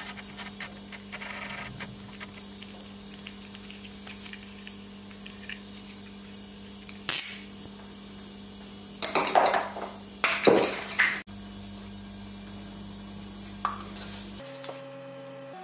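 Tools knocking against car suspension parts during a ball joint replacement: one sharp knock about seven seconds in, then a run of louder knocks and scrapes around nine to eleven seconds. A steady low hum sits underneath.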